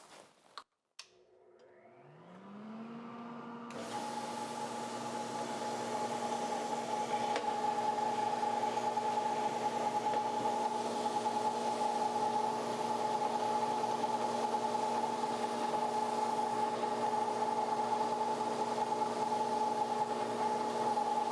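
Magna-Matic blade cleaner's electric motor switching on and spinning up over a couple of seconds, then running steadily with a steady hum and whine while cleaning a mower blade.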